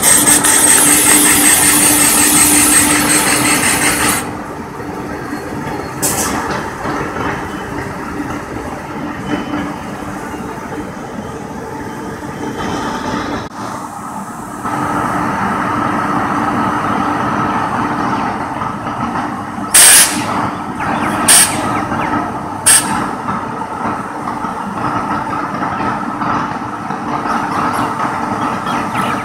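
WAG-9HC electric locomotive running slowly, with a steady machinery hum. Three short, loud bursts come close together about two-thirds of the way through.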